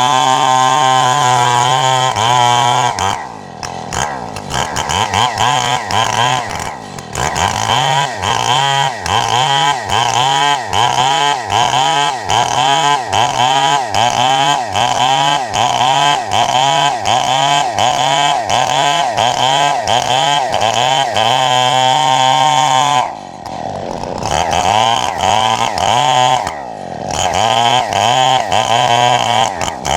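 Chainsaw running at high revs, then cutting wood with its engine pitch rising and falling in a steady rhythm, briefly dropping back a few times.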